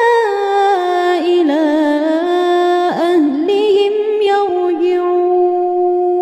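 A woman reciting the Quran in melodic tajweed chant, one unaccompanied voice drawing out the words in long ornamented notes. She closes the verse on one long held note near the end.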